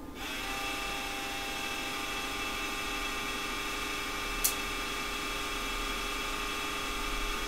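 Steady electrical whine of several tones from the switch-mode power supply of a Ground Zero 10K car amplifier, powered up with its driver board removed. It comes on just after the start, and there is one sharp click about halfway.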